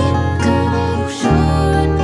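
Acoustic guitar accompaniment to a pop song, with plucked notes over low held bass notes that change just past a second in.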